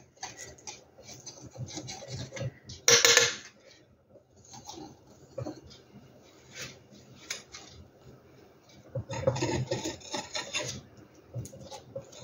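Metal palette knife scraping excess acrylic paint off the edge and underside of a canvas, in uneven bursts of rasping strokes, with a short sharp louder scrape about three seconds in and a longer run of scraping near the end.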